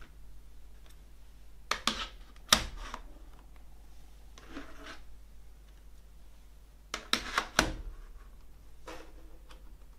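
Plastic CD jewel cases being handled and set down on a wooden tabletop: two quick runs of clicks and clacks about five seconds apart, with a soft sliding rub between them.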